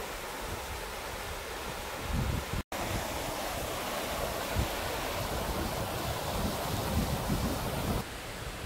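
Steady rushing of a mountain stream and waterfall, with gusts of wind rumbling on the microphone. The sound breaks off for an instant about three seconds in.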